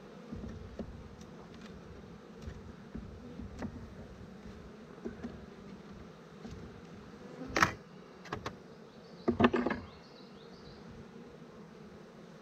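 A honeybee colony humming steadily around an opened hive. Sharp clacks cut through it, one loud one about halfway through and a quick cluster a couple of seconds later.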